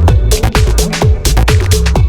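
Electronic dance music with a steady, pounding kick drum, deep bass and busy hi-hats.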